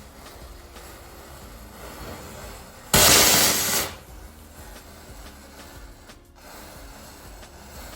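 A firecracker going off about three seconds in: a sudden loud burst of noise lasting just under a second, then falling away, over faint background music.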